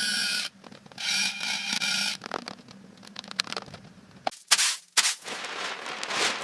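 Construction work sounds: two short spells of a steady pitched machine whir, then scattered knocks, a few sharp impacts and a stretch of scraping.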